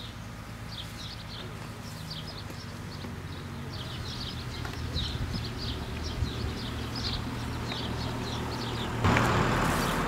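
Small birds chirping over and over above a low steady hum. About nine seconds in, a louder swishing rustle starts, like feet moving through tall grass.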